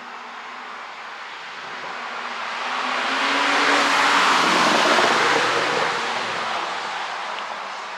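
A car driving past: a rush of tyre and engine noise that builds, is loudest about four to five seconds in, then fades away, with a faint low engine note under it.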